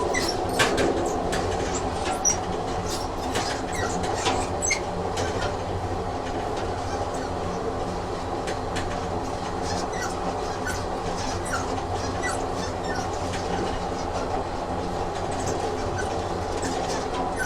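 Train running along the track: a steady rumble with irregular wheel clicks and short high squeaks.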